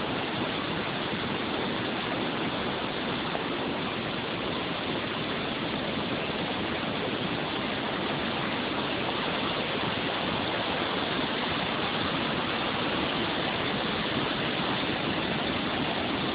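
Waterfall: falling water making a steady, even rush with no breaks.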